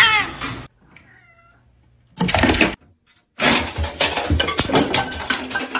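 A cat's quick, falling meows, one after another, stop less than a second in. After a quiet gap comes a short burst of noise, then a loud noisy rush that lasts to the end.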